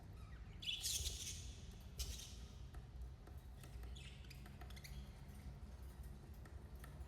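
Budgerigars chirping in short high calls. The loudest comes about a second in, a sharp one at two seconds, and fainter chirps around four seconds, over a steady low hum.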